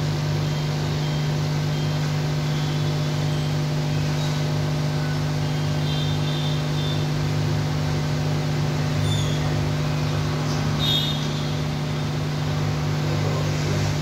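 A steady low machine hum, with a few faint high-pitched chirps now and then.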